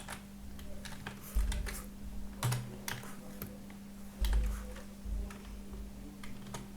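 Computer keyboard keys tapped irregularly, a few clicks at a time with short gaps, over a steady low hum.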